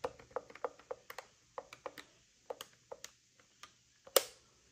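Plastic keys on a Yealink T41S IP desk phone being pressed in an irregular run of short clicks, like typing, with one louder click a little after four seconds in.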